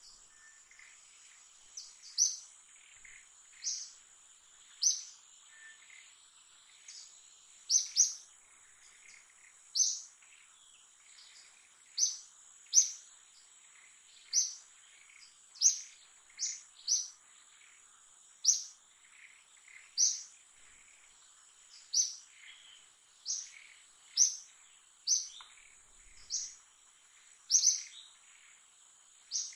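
A bird giving short, sharp, high chirps, repeated about every one to two seconds, over a steady high-pitched insect drone.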